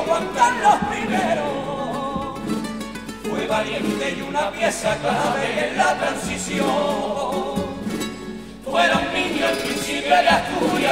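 Cádiz carnival comparsa pasodoble: a male chorus singing in several voices, accompanied by Spanish guitars. The singing dips briefly near the end, then comes back louder.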